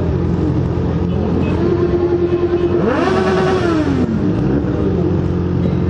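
Motorcycle engines running at parade pace, with one engine revved: it climbs about a second in and holds, goes higher near three seconds, then falls back toward idle.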